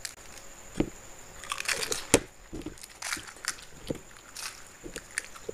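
Crisp fuchka (pani puri) shells being cracked open with the fingers and crunched while eating, close to the microphone: a string of short, sharp, irregular crunches, the loudest a little over two seconds in.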